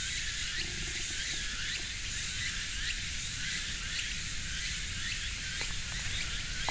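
Steady outdoor insect chorus, a high hiss dotted with short chirps repeating a few times a second, over a low rumble.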